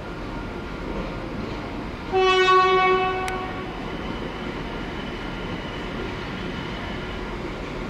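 Class 196 diesel multiple unit running slowly into a station platform, sounding one horn blast about two seconds in: a single steady note lasting about a second and a half over the train's running noise.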